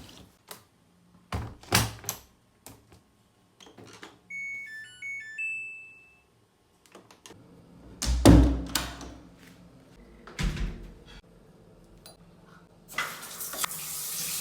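Household handling sounds: a few knocks and thuds, and a short run of electronic appliance beeps ending in one longer beep. A loud thud comes about eight seconds in, and a tap starts running near the end.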